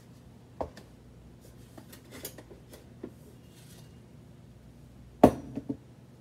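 Glass jars and small plant pots being handled and set down: a knock just over half a second in, a few faint clinks and rustles, then the loudest knock a little past five seconds, followed quickly by two lighter ones.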